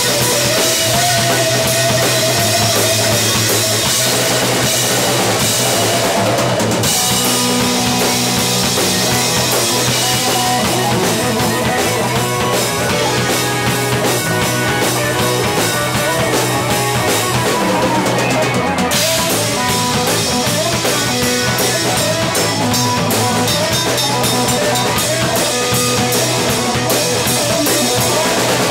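Live rock/fusion band jam, in a 70s style, with electric guitar, bass guitar, a Yamaha drum kit and keyboards playing together.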